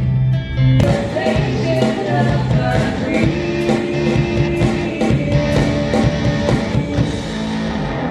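Live rock band playing: a held chord, then about a second in the drums and full band come in with a steady beat.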